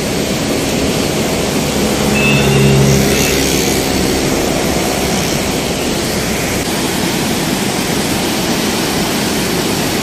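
The Beas River running full and fast: a steady, loud rush of white water. A brief hum rises over it about two to three seconds in.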